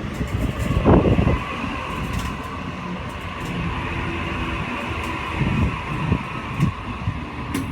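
Sydney Trains Waratah electric train standing at the platform, giving a steady electrical hum over a low rumble. A loud low thump comes about a second in, and a few smaller ones come near the end.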